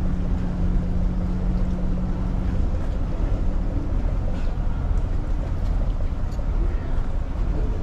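A boat's engine running steadily under way, with water and wind noise; a low steady hum in it drops away about two and a half seconds in.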